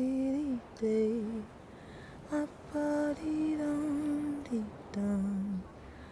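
A woman singing a wordless tune unaccompanied, on syllables like "da-da-dee-day-dee-day" and "dee-dum". She sings in short phrases with brief pauses between them.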